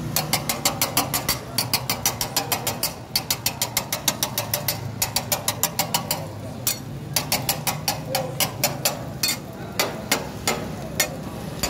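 Metal spatula chopping an egg omelette on a flat griddle, its edge striking the hot plate in rapid sharp metallic clacks, about four or five a second, in runs with short breaks.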